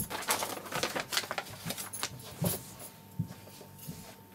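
Sheet of paper and cotton fabric rustling as they are handled on a cutting mat, with light taps and a couple of soft knocks. The rustling is busiest in the first two seconds and thins out after.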